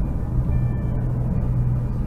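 Music playing over the low, steady rumble of a car on the road.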